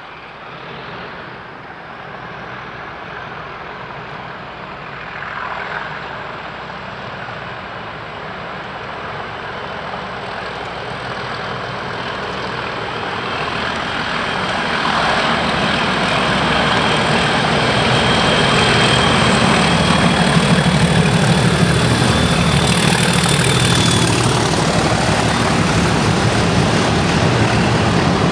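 Two Class 37 diesel locomotives, with English Electric V12 engines, working hard under power as they approach and pass, growing steadily louder into a heavy engine drone. A thin high whistle sits above the engines and stops about 24 seconds in.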